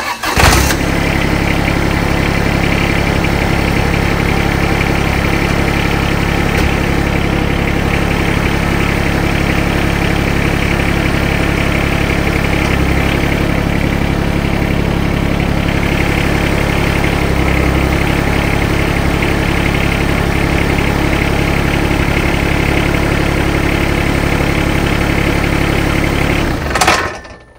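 John Deere X758 garden tractor's diesel engine running steadily while its new hydraulic grapple is tried out, then stopping near the end.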